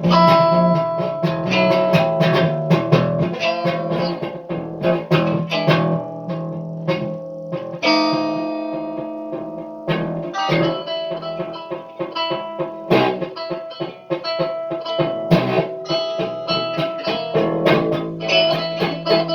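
Guitar being played: quick runs of plucked notes, with a chord left ringing and fading about eight seconds in before the picking resumes.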